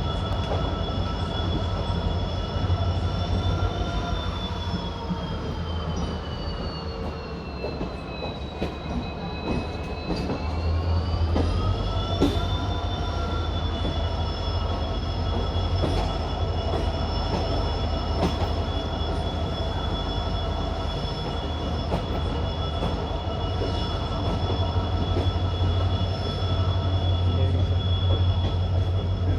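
WDP4D diesel locomotive's EMD engine running with a steady low rumble and a high humming whine. The whine sags in pitch a few seconds in and climbs back about twelve seconds in as the engine load changes.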